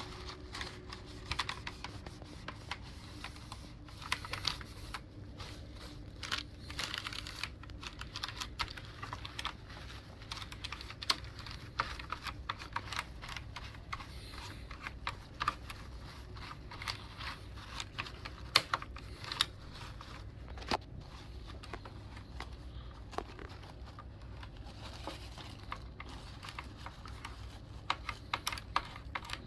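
Irregular sharp plastic clicks and clacks from a mechanical keyboard's keys being pressed or handled, sometimes in quick little runs.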